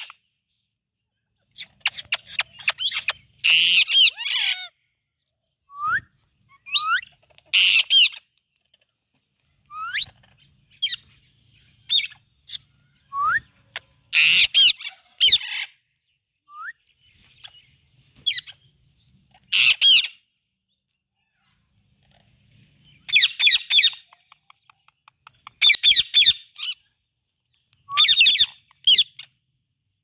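Indian ringneck parrots squawking and screeching in short harsh bursts every second or two, mixed with brief rising whistled chirps, with quiet gaps between.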